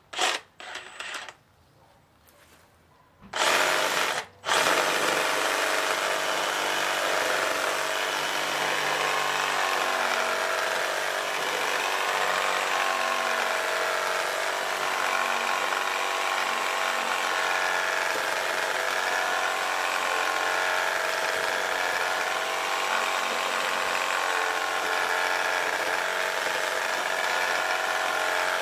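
Makita DJR188 18V brushless reciprocating saw cutting through a log with a long wood blade. A few short bursts at the start, then it runs steadily through the cut from about four seconds in.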